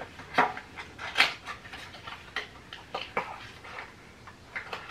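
A small paperboard product box being handled and opened, its flap and paper tab giving a run of irregular light clicks and crinkles.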